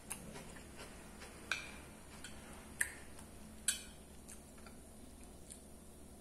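Close-miked eating sounds of a person chewing, with a series of sharp clicks and crunches, the loudest about one and a half, three and nearly four seconds in.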